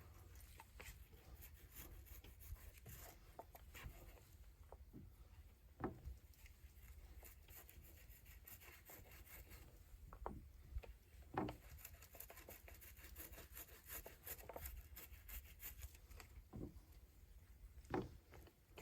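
Near silence with faint rubbing and scratching of hand work, broken by a few isolated soft clicks and knocks.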